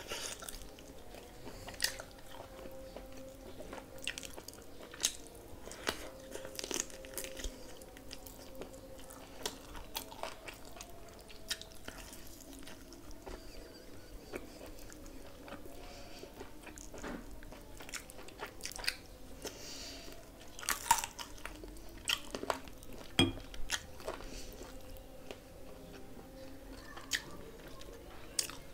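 A person biting and chewing pieces of coriander chicken masala, eaten by hand: irregular sharp mouth clicks and bites throughout. A faint steady hum runs underneath.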